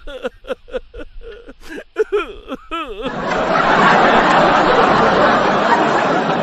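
Short bursts of snickering laughter with bending pitch. About three seconds in, a loud, even hissing noise takes over suddenly.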